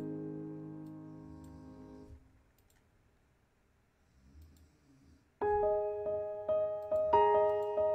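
Background piano music: a held chord fades out over the first two seconds. A gap of near silence lasts about three seconds, then the piano comes back with a repeating pattern of notes.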